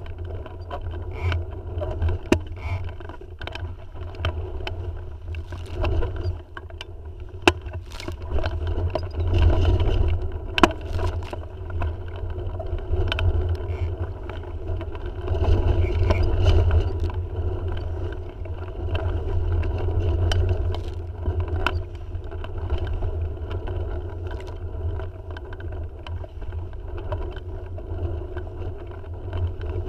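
Gusty wind buffeting the microphone aboard a Tiwal 3 inflatable sailing dinghy, with water rushing along the hull; the rumble swells with stronger gusts about ten and sixteen seconds in. Scattered sharp knocks and slaps from the boat and water break through it.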